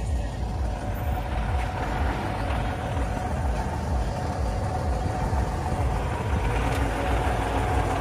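Fire truck's engine running steadily, a low rumble with a faint steady whine, as it drives the pump feeding a hose that waters the saplings.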